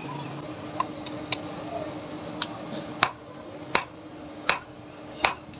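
Hammer blows on a red-hot steel file lying on an anvil, forging it out. A few light taps come first, then from about halfway in, evenly spaced ringing strikes land roughly every three-quarters of a second over a steady low hum.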